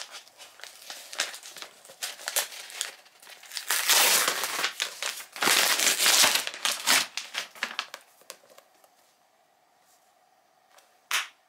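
Brown kraft paper being torn open and crinkled by hand as a wrapped book is unwrapped, with two loud stretches of tearing and rustling about four and six seconds in. It then goes quiet, apart from one short sharp sound near the end.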